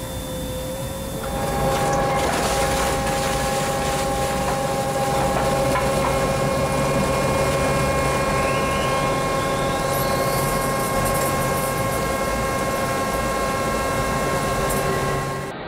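Underground coal-mining machinery running: a steady mechanical rumble with several held whining tones that grows louder about a second and a half in. A faint rising whine joins midway.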